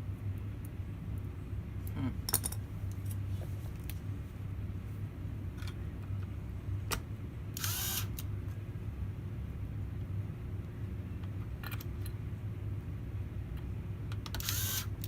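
Hands handling small laptop parts and tools: scattered light clicks and two short scrapes, one about halfway through and one near the end, over a steady low hum.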